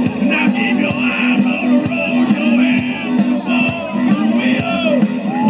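Rock music playing loudly.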